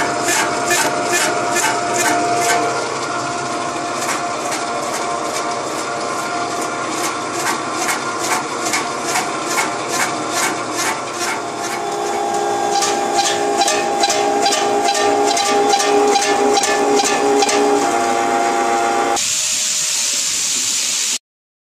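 MG-569 food dicing machine running while cutting pineapple into 4 mm cubes: a rhythmic clatter of about three strokes a second over a steady hum. Near the end this gives way to a steady hiss that cuts off suddenly.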